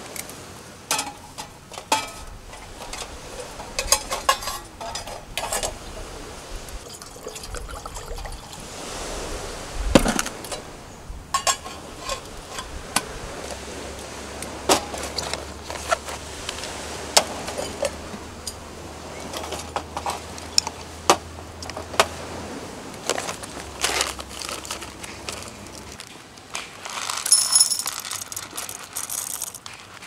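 Stainless steel camp cookware handled on a metal camp table: a run of light metallic clinks and knocks, scattered and irregular, as a steel pot is set on a stainless folding firebox and a hand coffee grinder is put down. Near the end, a rustle as a bag of coffee beans is handled.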